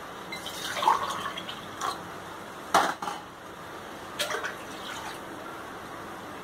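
Water poured from a steel tumbler into a metal kadai on the stove, splashing onto the pan's bottom, with a few sharp metal clinks, the loudest a little under three seconds in.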